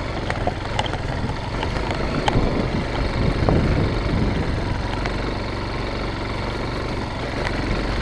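Motorcycle engine running at low revs as the bike rolls slowly over a rocky dirt track, with scattered clicks and knocks from loose stones under the tyres. It gets a little louder between about two and four seconds in.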